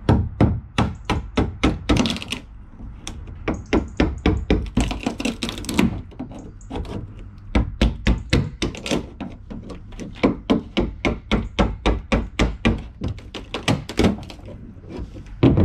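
Hammer striking a chisel to chip an old fibreglass patch off a plastic kayak hull: sharp knocks in runs of about three a second, with brief pauses and a few short stretches of scraping.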